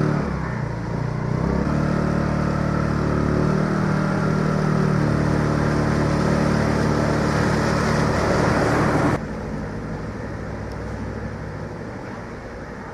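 A motor scooter's engine running steadily as it rides through floodwater, with the water splashing up around its wheels. About nine seconds in the sound cuts abruptly to a quieter wash of vehicles moving through the flooded street.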